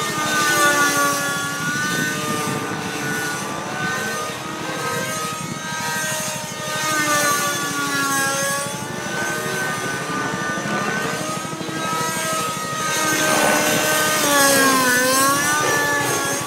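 Synergy N5C radio-controlled helicopter's Nova Rossi REX 57 two-stroke nitro engine and Rail 606 rotor blades in aerobatic flight. The engine and rotor whine rises and falls in pitch throughout, with a sharp dip and recovery near the end.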